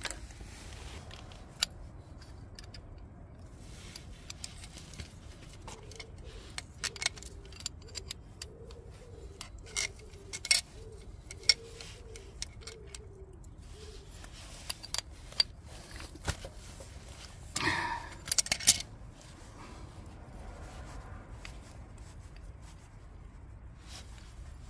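Spanner and small metal tools clinking and scraping against the oil pump's line fittings and the engine case on a Harley-Davidson Sportster, scattered single clinks with a quick flurry of them about three-quarters of the way through.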